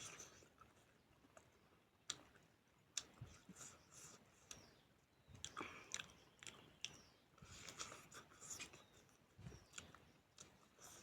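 Faint close-miked eating sounds: a person chewing beef, with irregular wet smacks and clicks from the mouth and a few soft low thuds.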